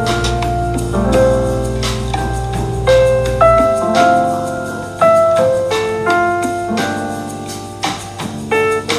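Relaxing lounge jazz background music; the low bass drops out about a third of the way through.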